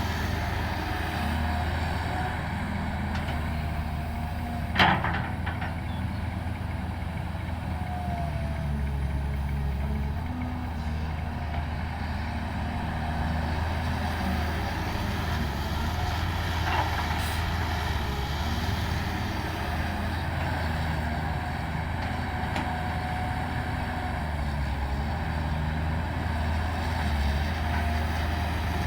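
Heavy diesel earthmoving machinery running steadily under load. A sharp metallic clank comes about five seconds in, and a fainter one later.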